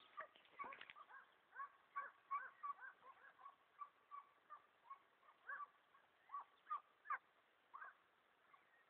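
Faint baying of several hunting hounds (zagar), about twenty short arched yelps at irregular intervals of two to three a second, stopping shortly before the end.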